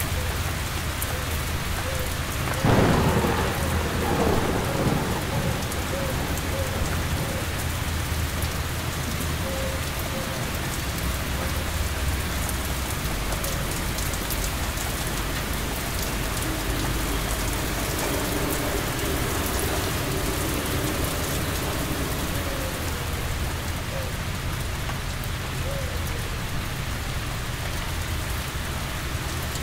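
Steady heavy rain with a thunderclap about three seconds in that rumbles away over a few seconds; a low thunder rumble swells again in the middle and fades.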